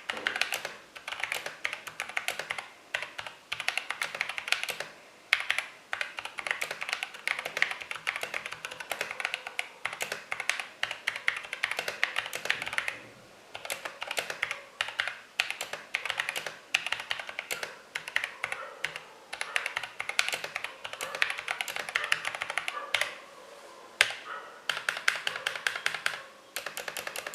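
Typing on a mechanical keyboard with lubed Outemu Sky switches and PBT dye-sub MT3 keycaps: a fast, continuous stream of keystroke clacks that pauses briefly a few times.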